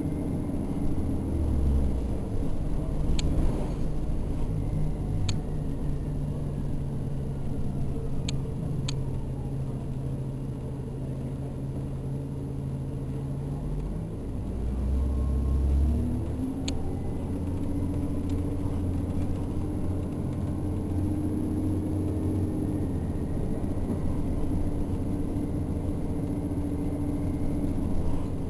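Orion VII NG diesel-electric hybrid transit bus running, heard from inside the cabin: a steady low drive hum with a faint whine that falls in pitch as the bus slows and rises again as it pulls away about halfway through. A few sharp clicks or rattles are heard along the way.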